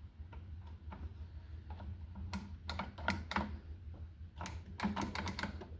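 Irregular plastic clicks and taps from handling a Craftsman 19.2-volt cordless miter saw, loudest in two quick clusters, with no motor sound: the saw won't start because its battery is not pushed all the way in.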